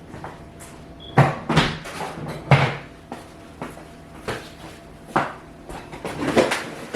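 Kitchen clatter while fetching a utensil: a string of sharp knocks and bangs from cabinets, a drawer and utensils being handled. The loudest come between one and three seconds in, with lighter knocks after.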